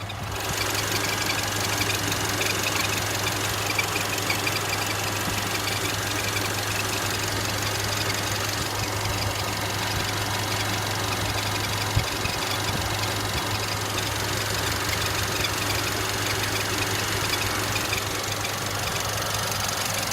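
Mercedes-Benz CLA running steadily, with a squeak (German 'Quietschen') coming from the car. There is a single sharp click about twelve seconds in.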